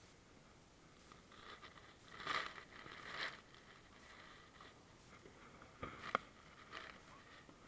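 Handling noise as a landing net and gear are moved in a small boat: short bursts of rustling and scraping a couple of seconds in, then two sharp clicks about six seconds in.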